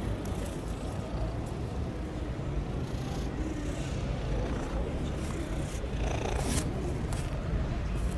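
Domestic cat purring close to the microphone: a steady, rough low rumble. A brief rustling noise comes about six seconds in.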